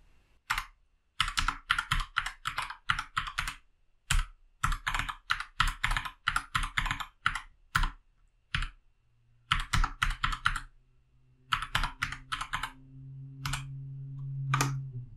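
Computer keyboard typing: quick runs of separate keystrokes in short groups with pauses between them, as an IP address, subnet mask and default router address are keyed in.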